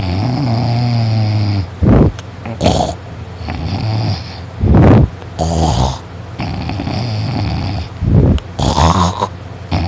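A person sleeping heavily after drinking, snoring loudly in long buzzing snores roughly every two to three seconds. Short, louder rasping bursts come between them.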